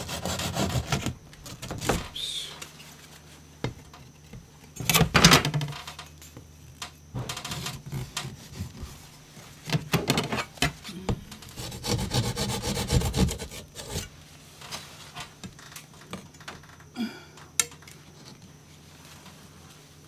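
Hand saw cutting through drywall, rasping strokes in several bursts with quieter pauses between.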